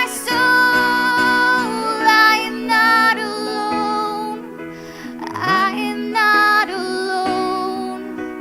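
Live worship song with singers holding long notes over the band's accompaniment.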